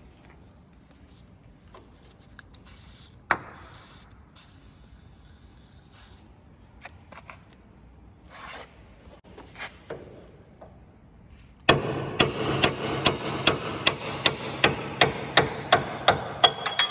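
Metal workshop tool work: scattered light clicks and scrapes. About two-thirds of the way through, a loud continuous rasping sound starts suddenly, with sharp regular strikes about three times a second, and a brief metallic ring near the end.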